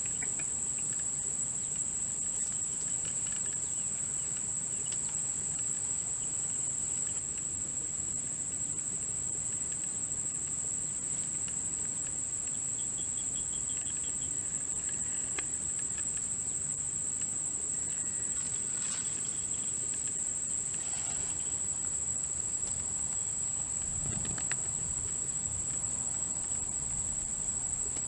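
Insects chirring in a steady, unbroken high-pitched drone, with a few faint short chirps over it.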